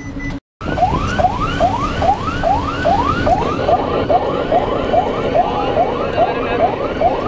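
Fire engine siren on a fast yelp, each tone rising and dropping back about two and a half times a second, heard from inside the moving truck over engine and road noise. The sound cuts out for a moment just after the start.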